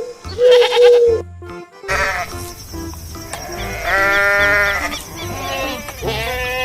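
Goats bleating several times, with a long quavering bleat about four seconds in, over background music.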